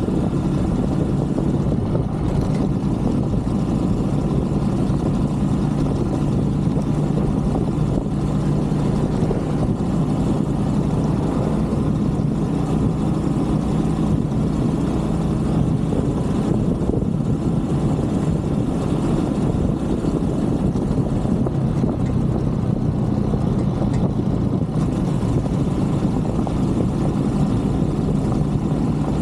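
A 125cc Brixton motorcycle's single-cylinder engine running at a steady speed while riding, a constant low drone with no change in pace.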